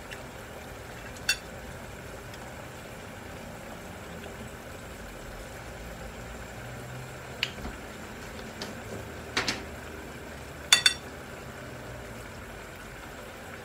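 Low steady hiss of a pot of liquid heating toward the boil on a gas stove, with four sharp metal clinks of utensils against dishes, the loudest a quick double clink near the end.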